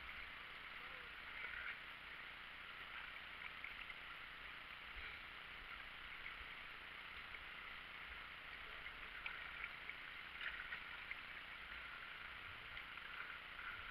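Quiet water sounds of a kayak being paddled: paddle blades dipping and dripping and water trickling along the hull, a steady hiss with small scattered splashes.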